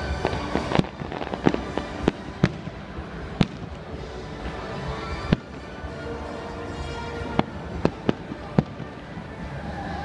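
Fireworks display: aerial shells bursting with sharp bangs at irregular intervals, about ten of them, over a constant background of fairground noise and music.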